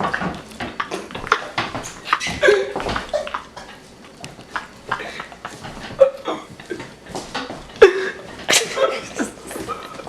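People laughing hard in irregular short bursts, with gasps and sharp breathy outbursts.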